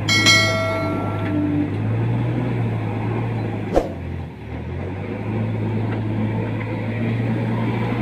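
A JCB backhoe loader's diesel engine runs steadily. Its revs drop briefly about halfway through and then pick up again, with a sharp click just before. A short ringing chime sounds at the very start and is the loudest moment.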